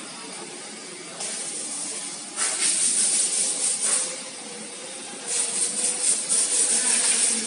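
TAIHO colour sorter machinery hissing, with a steady hiss that grows louder about a second in. Two loud spells of sputtering hiss follow, around the middle and again near the end.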